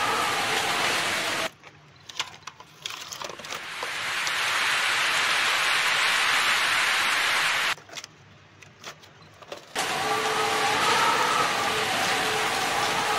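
A steady engine-like hum and hiss, as of a motor vehicle running. It cuts out abruptly twice for about two seconds, leaving only light plastic clicks and taps of toys being handled.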